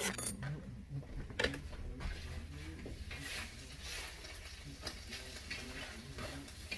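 Faint crackling and rustling handling noise, with a couple of sharp clicks at the start and about a second and a half in.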